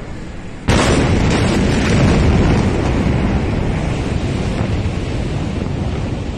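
The Beirut port ammonium nitrate explosion heard from within the city: a sudden loud boom under a second in as the blast arrives, then a long, loud rumble that fades only slowly.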